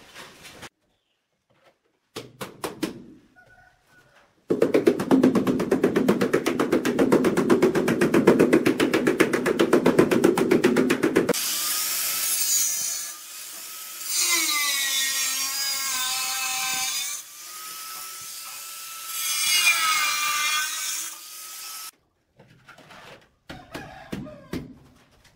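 A loud, fast, even rasping rattle for several seconds. Then a handheld angle grinder cuts a ceramic wall tile for about ten seconds, its whine rising and falling as the disc bites into the tile. A few light knocks come near the end.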